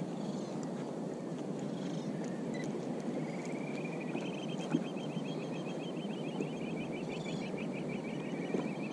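Steady wash of wind and sea water, with a fast, evenly pulsed high trill that rises in pitch about three seconds in and runs for some five seconds before fading near the end.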